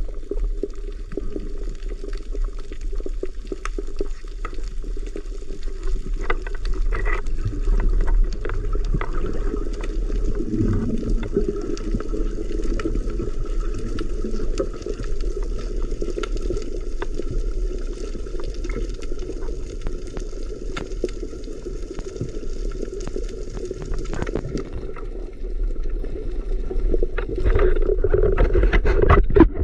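Underwater ambience picked up by an action camera in its waterproof housing: a steady muffled wash of water noise with scattered faint clicks and a thin steady whine that cuts off near the end.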